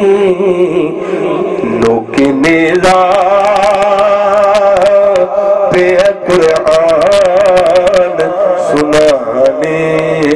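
A man singing a Sufi devotional song into a handheld microphone, amplified, in long held notes that waver and bend, with a brief break about two seconds in.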